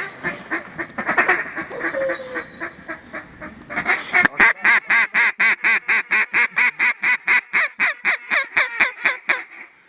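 Mallard duck call blown to work ducks in. There are a few seconds of scattered quacks, then a long, rapid run of evenly spaced quacks at about five a second.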